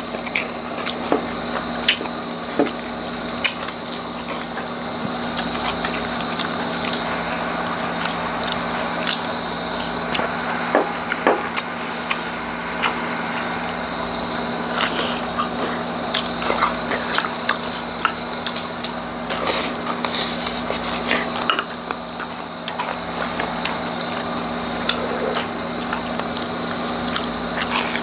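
Crunching and chewing of crispy deep-fried chicharong bulaklak (pork mesentery), with many short sharp crackles as the fried pieces are bitten into and torn apart by hand.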